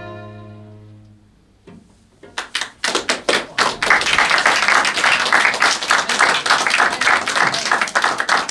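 A string ensemble's last held chord, led by violin, dies away. After a brief hush, the audience starts applauding about two seconds in, a few claps at first, then thick, steady clapping.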